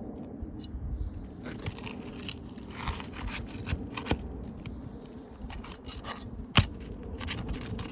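Asphalt shingles being worked loose so their nails can be pulled: irregular scraping and crackling, with scattered clicks and one sharp, loud click about six and a half seconds in.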